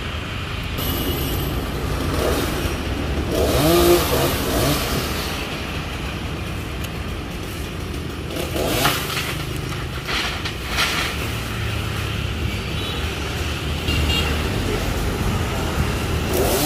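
Steady low engine hum, with a short voice call about four seconds in.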